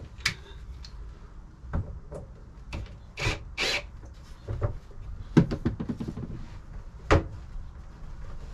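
A cordless drill being handled, with no motor running: scattered clicks and knocks, two short rubbing scrapes about three seconds in, a quick run of clicks a little after five seconds, and a sharp knock near seven seconds.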